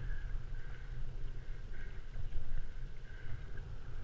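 Wind rumbling on the microphone of a kayak-mounted camera, with small waves lapping against a plastic sit-on-top kayak's hull.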